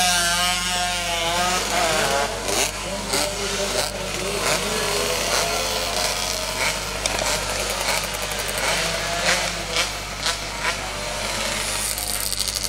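Two-stroke 125cc underbone race motorcycles running and revving, a buzzing engine note whose pitch wavers up and down in the first couple of seconds. Sharp pops and crackles are scattered through the rest.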